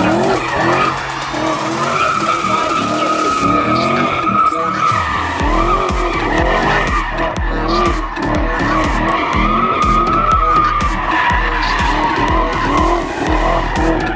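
A car spinning donuts: its tyres squeal without a break while the engine revs rise and fall again and again as the driver works the throttle, the tyres burning into smoke.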